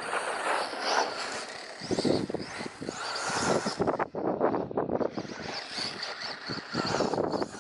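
Brushless-motor 2wd short-course RC truck being driven through grass and flowers, its motor and tyres surging and easing irregularly with the throttle. Wind blows on the microphone throughout.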